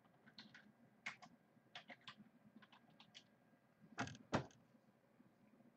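Someone typing on a computer keyboard: scattered keystroke clicks in short runs, with two louder knocks about four seconds in.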